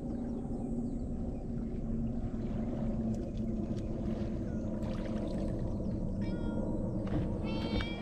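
A cat meowing twice near the end, a short call and then a longer, louder one, over a steady low rumble.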